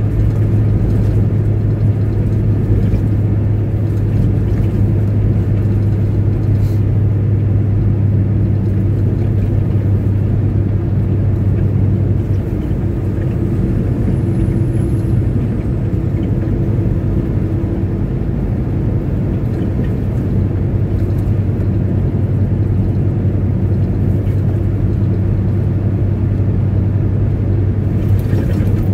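Semi truck's diesel engine droning steadily with road noise at highway speed, heard from inside the cab.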